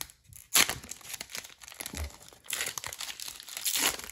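Foil wrapper of a Panini Chronicles Draft Picks trading card pack being torn open by hand: a sharp rip about half a second in, then crinkling and crackling of the foil as it is pulled apart.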